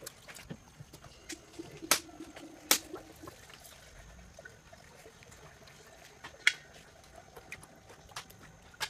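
Hot engine oil trickling out of the drain hole of an Audi 2.0T TSI oil pan into a catch pan, with a few sharp clicks along the way.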